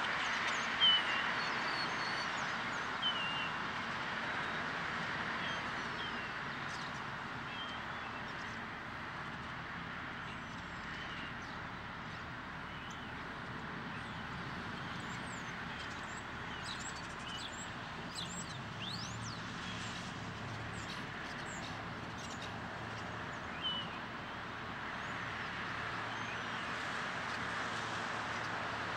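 Steady hum of street traffic with a few short, sharp bird chirps, the loudest about a second in, and fainter high twittering in the middle.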